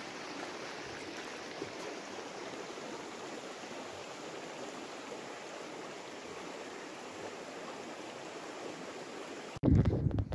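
Steady rushing of a shallow stream flowing over stones. Near the end it cuts off suddenly to louder gusts of wind buffeting the microphone.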